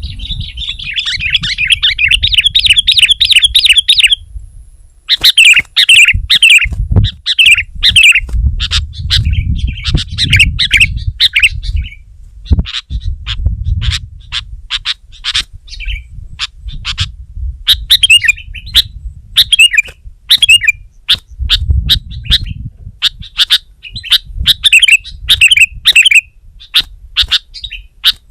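Sooty-headed bulbul (kutilang) calling loudly and repeatedly: a rapid chattering run for the first few seconds, then a string of short sharp notes and bubbly phrases, over a low rumble.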